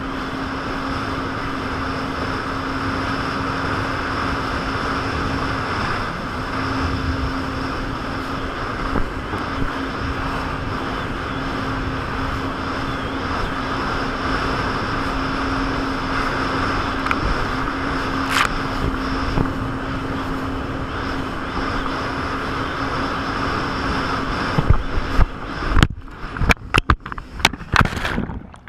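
Jet ski engine running steadily at speed over rushing water and wind, with one constant tone. Near the end comes a quick run of loud, irregular knocks and splashes as the camera is bounced loose on wake bumps, and the engine sound falls away.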